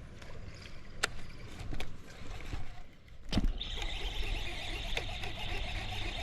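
A few sharp knocks, then from about three and a half seconds in a steady high whir of a fishing reel as a small hooked fish is played.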